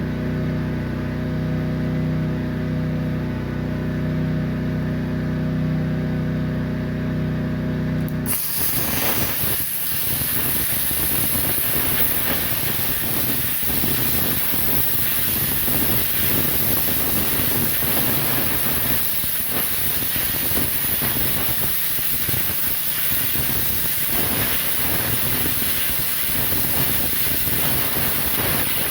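A steady machine hum with several fixed pitches, then about eight seconds in a plasma cutter's torch fires and runs with a continuous hard hiss of arc and compressed air.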